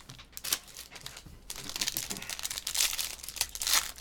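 A couple of sharp clicks as a clear plastic card case is handled, then dense crinkling and tearing of a trading-card pack's plastic wrapper from about a second and a half in, getting louder toward the end.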